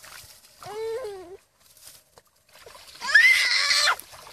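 Feet splashing through shallow muddy water, with a short pitched cry about a second in and a louder, high-pitched shriek mixed with splashing for about a second near the end.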